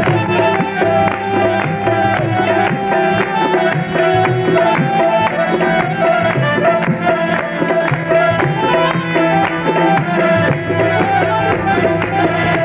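Afghan folk ensemble playing an instrumental passage: tabla drumming under a melody on harmonium, rubab and keyboard.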